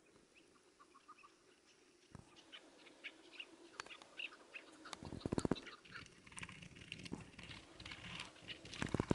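Chukar partridges giving many short chirps and clucks. Two louder bursts of rapid flutter-like knocks come about five seconds in and again near the end.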